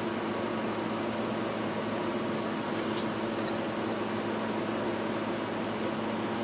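Steady fan hum and hiss with a low droning tone, and a faint click about three seconds in.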